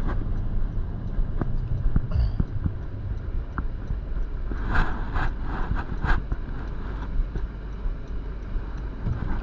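Steady low rumble of a car interior on the move, with a few short knocks and clicks about halfway through.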